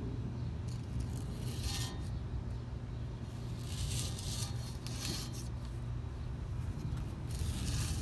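A handheld knife sharpener scraping along the rim of a cast-iron frying pan, about four rasping strokes a couple of seconds apart, over a steady low hum.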